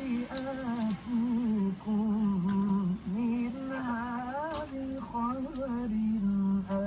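A male reciter chanting the Quran in long, ornamented held notes with short pauses for breath, playing from a car radio.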